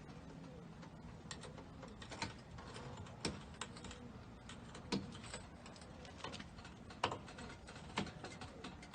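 Irregular sharp clicks and taps, about half a dozen of them and unevenly spaced, the strongest a little past three seconds, near five seconds and about seven seconds in, over a faint steady low background.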